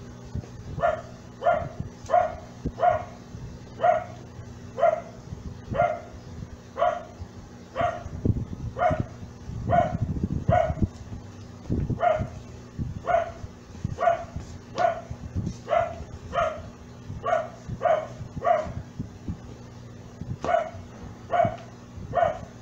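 A dog barking over and over at a steady pace, about one bark a second, with a steady low hum underneath.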